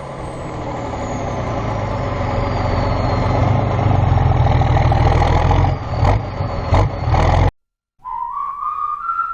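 A heavy farm-machinery engine runs with a steady low drone, growing louder, under a high whine that falls slowly in pitch. It cuts off abruptly near the end, and after a moment's silence a whistle rising in pitch starts the music.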